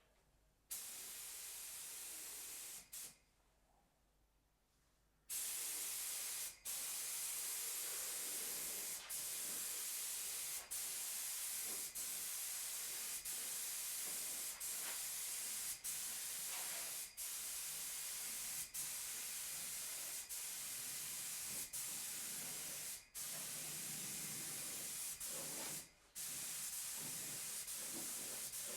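HVLP spray gun blowing compressed air, a steady hiss in long passes. A short burst comes about a second in, then a pause, then near-continuous spraying from about five seconds in, broken by brief dips and two short stops near the end.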